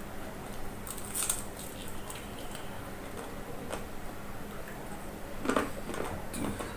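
Fried chicken being bitten and chewed: short crisp crackles and crunches of the coating, loudest about a second in and again near the end, over a low steady hum.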